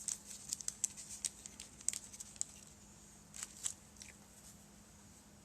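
Plastic bag crinkling and crackling as small resin model pieces are worked out of it, a quick run of sharp crackles that thins out after about two and a half seconds and stops about four seconds in.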